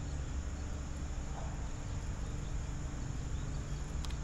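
Steady outdoor background noise with insects chirring, and one short click near the end.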